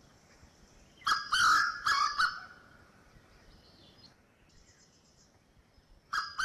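Grey junglefowl (Gallus sonneratii) cock crowing its staccato territorial call, twice: a broken, multi-part crow about a second in and another starting near the end.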